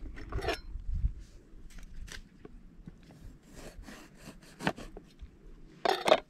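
Scattered light clicks and short scrapes of ingredients and utensils being handled at a small cooking setup, with one louder scrape just before the end.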